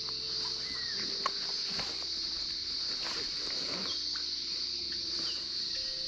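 A steady, high-pitched insect chorus, with footsteps on a leaf-littered dirt and rock track and a few faint short chirps.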